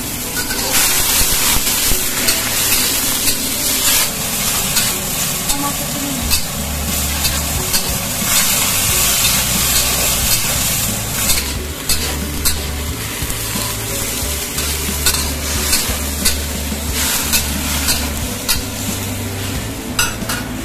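Cauliflower and bell peppers sizzling in hot oil in a hammered wok, a metal spatula scraping and clinking against the pan as they are stir-fried.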